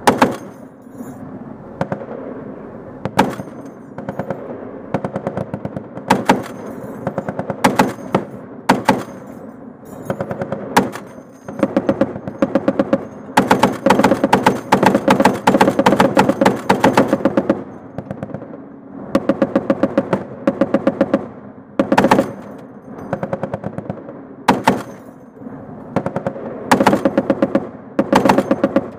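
M2 .50 caliber heavy machine gun firing in bursts from a vehicle turret, close up from the gunner's position. Short bursts of rapid, evenly spaced shots come every second or few, with a longer stretch of sustained fire in the middle.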